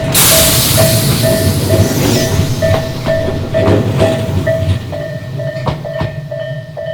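Japanese railway level-crossing warning bell ringing about twice a second while a train runs over the crossing, its wheels clacking over the rail joints. The train noise comes in suddenly at the start and fades toward the end as the bell keeps ringing.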